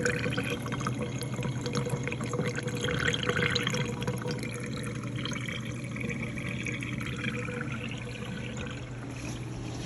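Frigidaire Professional Series dishwasher draining: a steady hum from the pump under irregular splashing and gurgling water. The drain cycle running shows the machine works once it starts.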